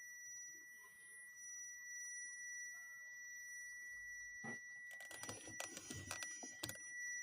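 A steady high-pitched whine, then, from about four and a half seconds in, a quick run of clicks and taps from typing on a laptop keyboard.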